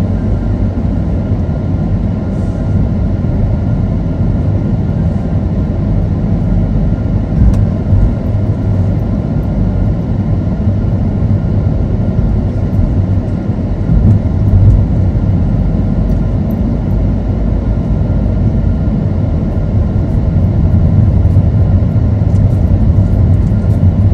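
Steady low rumble of engine and road noise heard from inside a moving car driving slowly through a city street, swelling briefly a couple of times.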